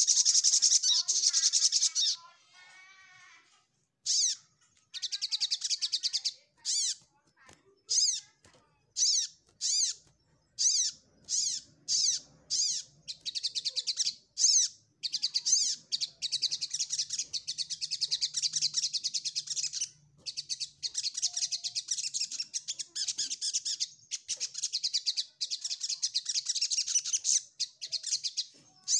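Male sunbird singing its rival-seeking challenge song: fast, very high-pitched chattering trills, in short bursts through the first half, then in long near-continuous runs.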